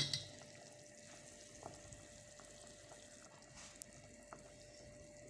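A spoon knocks once against the cooking pot right at the start, then a faint steady hiss of the pot of soup simmering, with a few small ticks.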